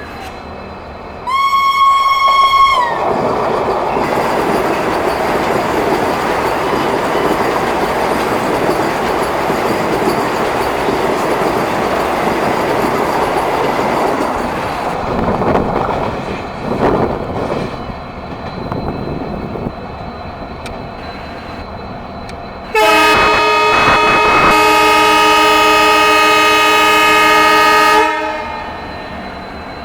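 Vande Bharat Express trainset sounding a shrill horn as it overtakes alongside. There is a short single-note blast about a second in, then the rushing, rattling noise of the passing train for some twelve seconds. Near the end comes a long blast of several notes together, lasting about five seconds, which cuts off sharply.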